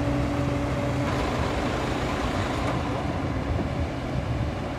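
Aquatic weed harvester's engine running steadily with a low hum as its paddle wheel churns water. About a second in, the hum's tone drops out and a steady rushing noise carries on.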